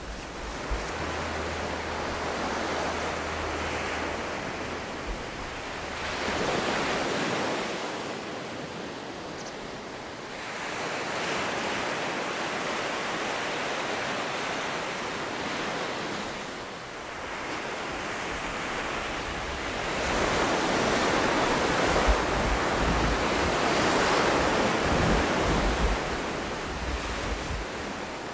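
Sea surf breaking and washing up a beach, swelling and falling away in slow surges several seconds apart. Wind rumbles on the microphone at the start and again near the end.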